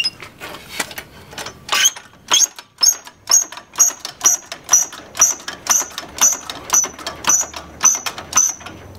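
Jack being worked to lift a truck: a regular run of metallic clicks, about two a second, each with a short high ping, starting about two seconds in.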